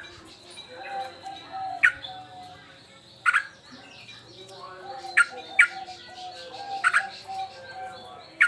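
Agitated male yellow-vented bulbul (trucukan) calling, giving about six loud, sharp, clipped call notes at irregular intervals. A steady background of lower-pitched chirping from other birds runs beneath them.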